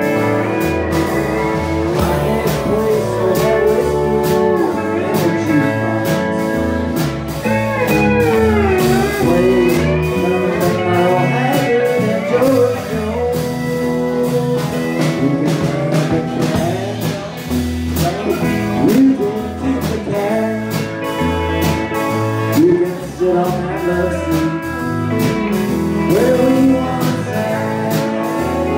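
Live country-blues band playing: electric guitar, electric bass, drums and steel guitar.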